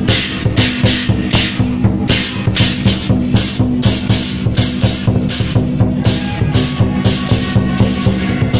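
Loud percussion-driven procession music: cymbal crashes at about three a second over a pounding drum beat and a steady held tone.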